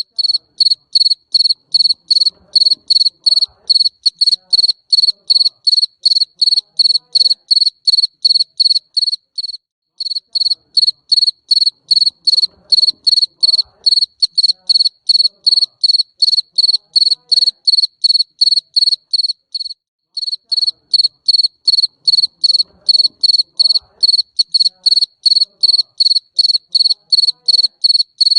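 Mbering Raja cricket (jangkrik) chirping in a fast, even, high-pitched pulse train, about two to three chirps a second. The chirping stops for a moment about every ten seconds and starts again the same way, as a looped recording.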